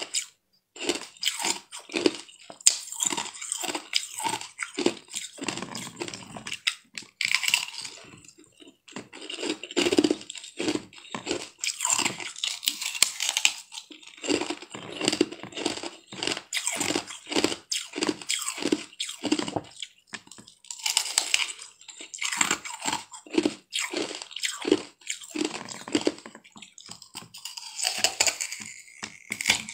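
Hard blue-dyed ice being bitten and chewed: a dense, irregular run of crisp crunches and cracks with a few short pauses.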